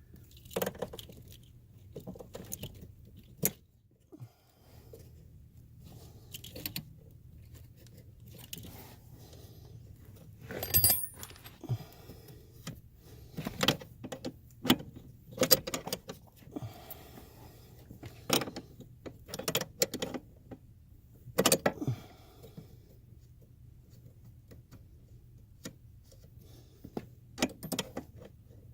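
Scattered metallic clicks, clinks and knocks of hand tools and metal parts being handled during car repair work under a dashboard, over a faint low hum. The sharpest knocks come about a third of the way in, a little past the middle and about three quarters of the way through.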